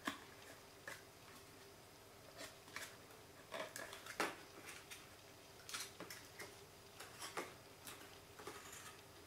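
Cardstock being folded and pinched by hand: faint, irregular crinkles and light crisp clicks as the petal flaps of a small paper box are creased.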